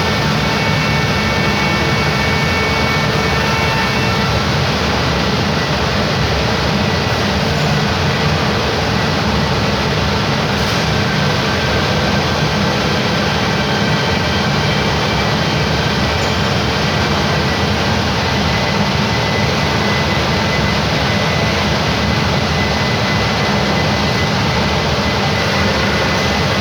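CNC router at work on wood: a steady, loud machine noise with a deep rumble and thin, steady high whine tones from the spindle.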